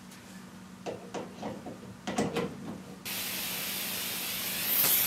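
Pink noise from a highly directional Soundlazer speaker switches on suddenly about three seconds in as a steady hiss, mostly high-pitched. Near the end it swells briefly, which is the noise reflecting off a person walking in front of the speaker. A few faint clicks come before it.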